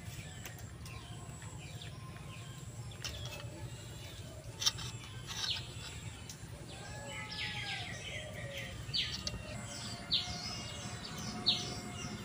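Birds chirping and calling in short, quick notes that grow busier in the second half, over a steady low background hum. There is a single sharp click about four and a half seconds in.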